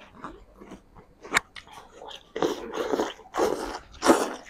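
Close-up eating sounds of fast chewing and biting into a nasi Padang meal: a sharp click a little over a second in, then a run of noisy chewing bursts in the second half, the loudest near the end.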